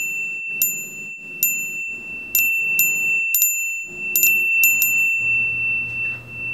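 Edited-in "sparkling clean" shine sound effect: about a dozen bright chime-like pings in quick, irregular succession over a high ringing tone that lingers after them.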